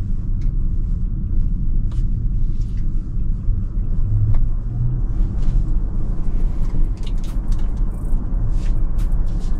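Steady low road and tyre rumble inside the cabin of a Tesla electric car driving along, with no engine sound, and a few faint clicks.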